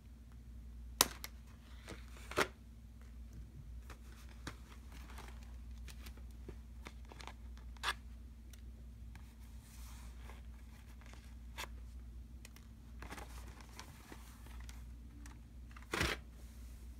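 Cardboard and plastic packaging being handled and pulled apart, rustling and tearing, with a few sharp snaps: two loud ones about one and two and a half seconds in, a smaller one near the middle, and another near the end.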